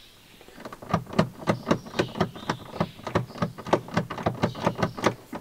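Rapid, even ticking at about four to five ticks a second, starting about a second in.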